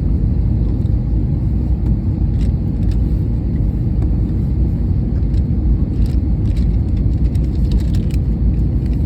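Airliner cabin noise: a steady low rumble of engines and airflow heard from inside the passenger cabin, with a few faint ticks.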